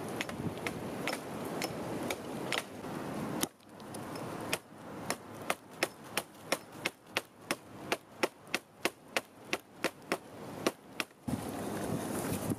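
Small hatchet chopping into a wooden stick held against a log: a regular run of sharp wooden knocks, about three a second, from about four and a half seconds in to near the end. Before it, a steady rush of outdoor background noise with a few scattered knocks.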